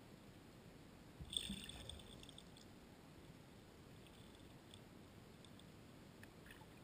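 Near-silent underwater river ambience, heard through a sealed camera housing. About a second in comes a low thump and then a brief crackle of clicks that dies away within a second, with a few faint clicks near the end.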